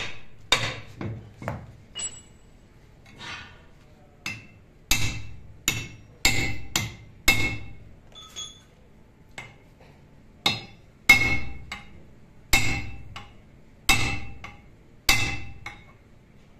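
Hammer striking a steel rivet punch, setting the rivets that fasten a new brake lining to a MAN truck brake shoe. About twenty sharp metallic blows come at an uneven pace, often two or three in quick succession, each with a short ring.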